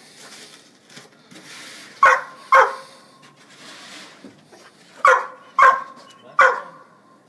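German shorthaired pointer barking five times: a pair about two seconds in, then three more in quick succession from about five seconds in. Softer hissing noise fills the gaps between the barks.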